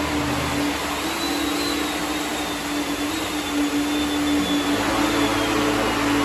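A homebuilt 12000 W electric hovercraft's fans running under power: a steady whirring drone with one held tone and a faint high whine. The lower tones step slightly a couple of times as it manoeuvres.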